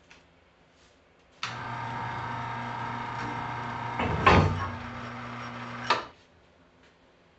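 A machine starts abruptly and runs steadily with a low hum and a hiss for about four and a half seconds, then cuts off. There is a loud metallic clank about four seconds in.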